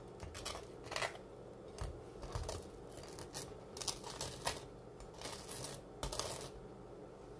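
Table knife scraping cream cheese across a toasted bagel half: a run of short, uneven scraping strokes on the crisp crust.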